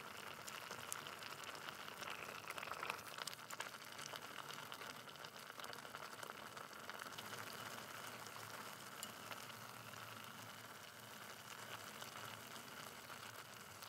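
Water boiling in a pot with instant noodles and greens: a faint, steady bubbling with small pops, and a few sharper clicks in the first few seconds.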